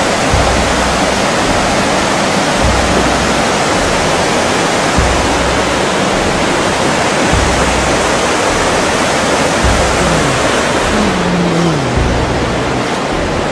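Steady rushing of a whitewater river over boulders, loud and even, with irregular low rumbles underneath.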